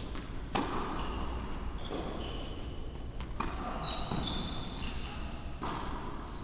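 Tennis ball bouncing on an indoor hard court, a handful of irregular thuds that ring on briefly in the hall, with short high squeaks of shoes on the court surface.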